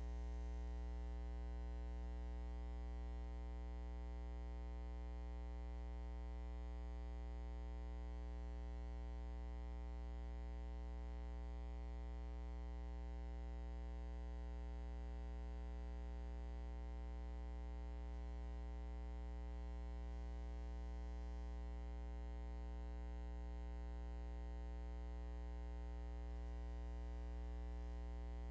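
Steady low electrical hum with a buzz of many overtones above it, and no other sound.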